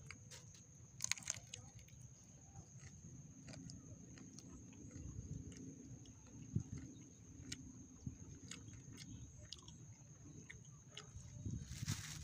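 A person chewing and biting fried chicken, with scattered small clicks and crunches as pieces are picked off with the fingers, over a steady high-pitched background tone.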